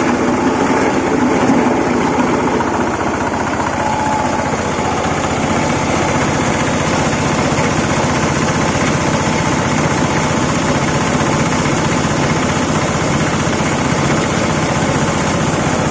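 Small fish-meal grinding machine running steadily, its motor and grinder making a loud, continuous mechanical drone.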